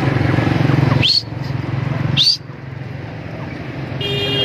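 A motor vehicle engine running with a steady low rumble that drops away sharply a little past two seconds in. Two short, rising whistle-like calls come about a second apart over it.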